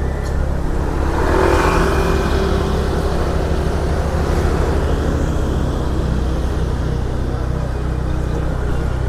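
Motorbike engine running steadily while riding through street traffic, with a louder swell of passing-vehicle noise about a second in.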